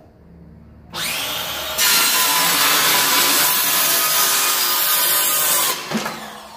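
Circular saw starting up about a second in, then its blade cutting steadily through a sheet of wood for about four seconds with a whine. Near the end it drops off as the cut finishes and the motor stops.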